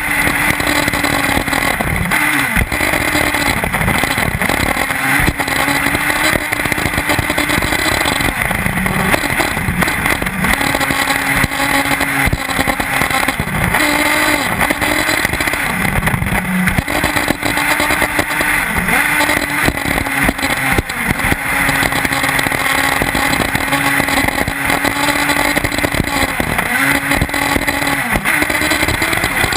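1/8-scale Intech BR-5 nitro buggy's small glow engine running at high revs, heard from a camera mounted on the car, its pitch dipping briefly every few seconds as the throttle is lifted and then picking back up. A constant rushing noise of the car over the dirt runs under it, with occasional knocks from bumps.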